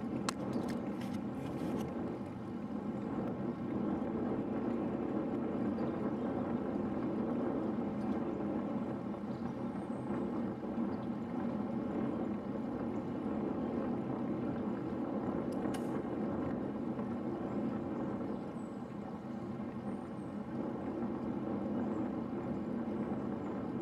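Steady rushing of wind over the microphone and road-bike tyres on asphalt while riding at speed in a group, with a few faint clicks near the start.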